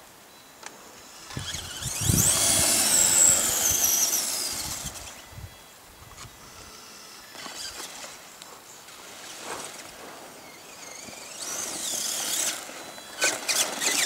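Electric drive motor of a radio-controlled off-road buggy whining at a high pitch in bursts as the throttle is worked, the whine rising then falling. It is loudest from about two to five seconds in and comes back near the end.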